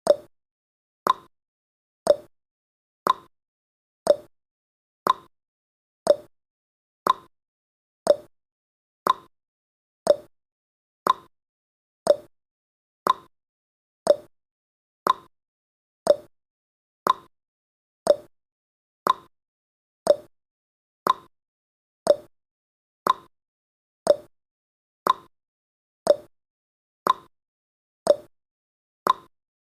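Countdown timer's tick sound effect: one short, sharp tick every second, evenly spaced, each dying away quickly.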